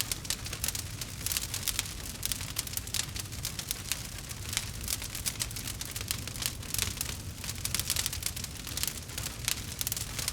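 Wood fire burning in a fireplace, with dense, irregular crackling and popping over a low, steady rumble.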